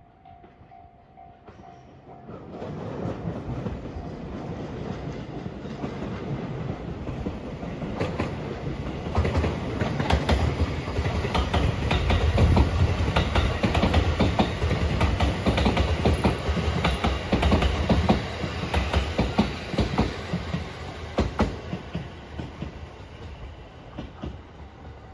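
Marine Liner rapid electric multiple unit passing close by, growing louder to a peak and then fading away. Wheels clack regularly over the rail joints as the cars go by.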